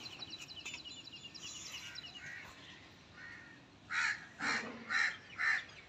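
Crows cawing: four loud caws about half a second apart, starting about four seconds in. Faint high chirping of small birds is heard in the first two seconds.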